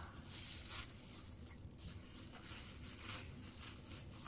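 Eating sounds of fried chicken, biting and chewing in several short bursts, the loudest about a second in. A plastic food glove and wrapping paper crinkle along with them.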